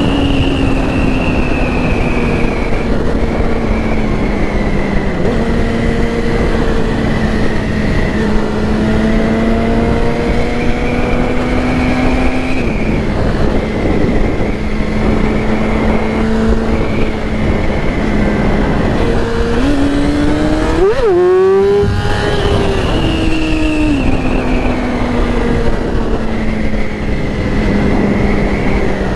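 2008 Yamaha R6 inline-four engine running steadily under way, with wind rush. The engine pitch shifts gently up and down, and about 21 seconds in it climbs sharply, cuts out briefly, then settles again.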